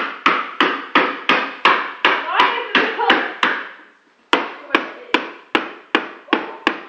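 A hammer striking a carbon monoxide detector over and over, about three sharp blows a second, each ringing briefly, with a short break about four seconds in.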